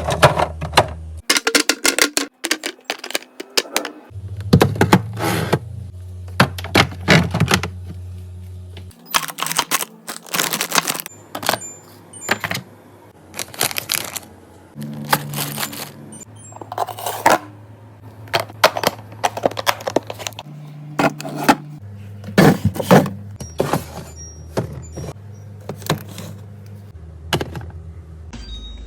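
Irregular knocks, clacks and scrapes of containers and other items being picked up and set down while a refrigerator is cleared out, over soft background music with a low bass line.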